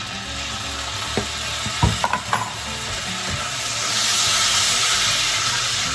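Butter, chopped garlic and sugar sizzling in a hot wok while a wooden spatula stirs them, with a few knocks of the spatula against the pan between one and two and a half seconds in. The sizzle grows louder about four seconds in.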